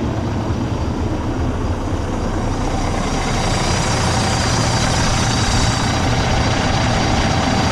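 Cummins X15 inline-six diesel engine of a 2018 International LT625 truck idling steadily, heard close up at the open engine bay. A thin, high, steady whine rides over the low drone and grows stronger about halfway through.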